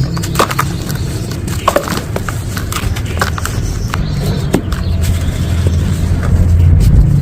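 Dry sand crumbling and crunching: irregular crisp crackles and small snaps over a low rumble.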